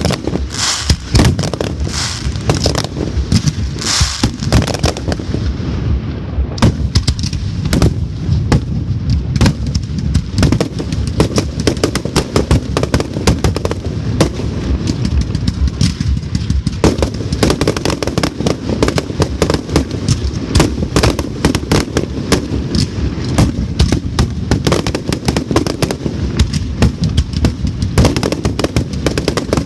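Fireworks going off in a dense, continuous barrage of rapid bangs and crackles, with no let-up.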